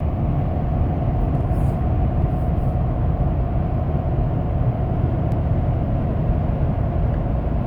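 Tyre and road noise inside the cabin of a Nissan Armada at highway speed on Falken Wildpeak AT3 all-terrain tyres: a steady low rumble with a faint even hum.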